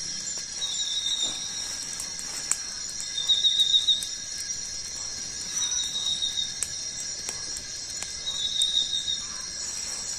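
Tropical forest insect chorus: a steady high-pitched drone with a buzzing call that repeats about every two and a half seconds, over scattered faint clicks.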